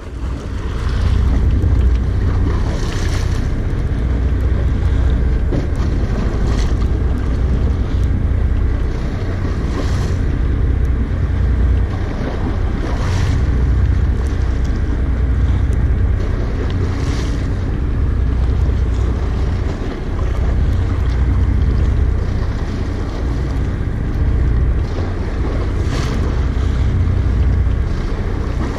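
Wind buffeting the camera's microphone at sea, a heavy steady rumble, with waves washing and slapping against the boat's hull every few seconds.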